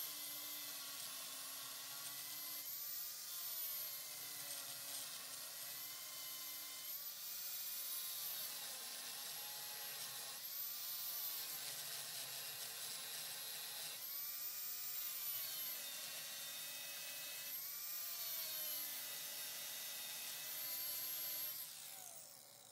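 Angle grinder with a thin cut-off wheel cutting into the steel rivet heads on a truck frame, slotting them to about an eighth of an inch so the rivets can be knocked out. Its high whine dips in pitch about six times as the wheel bites and recovers, then winds down near the end as the grinder is switched off.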